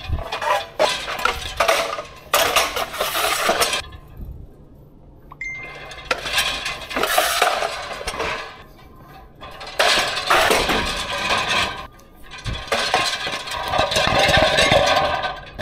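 Charger plates standing upright in a wire dish rack clinking and rattling against each other and the wire as the rack is rolled, in several bursts with two short lulls.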